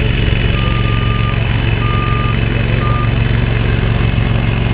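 Spider ILD02 remote-controlled mower's engine running steadily as it drives through long grass, a loud, even low hum. Three short electronic beeps at one pitch sound in the first three seconds, each shorter than the last.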